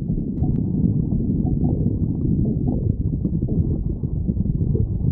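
Stomach growling: a continuous low rumble with a fast, irregular flutter and a few short, higher gurgles scattered through it.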